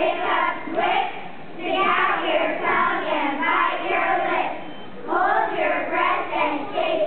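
Young children's voices reciting a poem together in chorus, their speech broken by short pauses.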